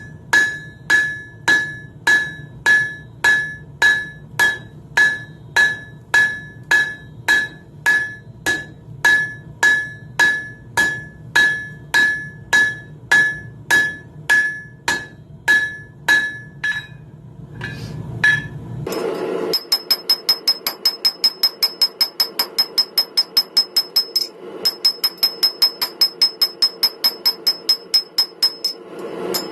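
Blacksmith's hand hammer striking hot spring steel on an anvil while drawing out tong reins, in steady ringing blows about two a second over a low steady hum. After about nineteen seconds the blows come quicker, four or five a second, with a higher ring and a short pause.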